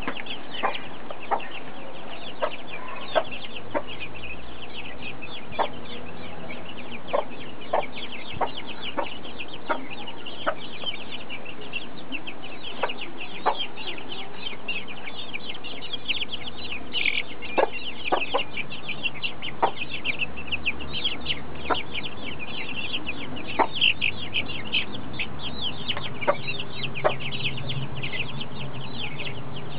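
A brood of young chicks peeping continuously, with frequent sharp taps as they peck at a feed dish. A mother hen clucks low near the end.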